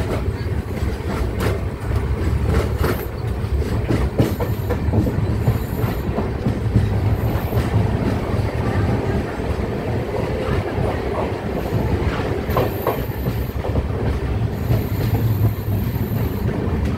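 Indian Railways express coach heard from on board as it runs along. There is a steady rumble of the running gear, wheels clacking over rail joints at irregular intervals, and several high, thin squeals from the wheels on the rails in the second half.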